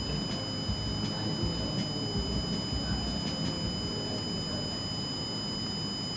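Arduino-driven piezo buzzer sounding one continuous, unbroken high-pitched tone: the aural warning that the refrigerator door is not securely closed. Rumbling handling noise runs underneath.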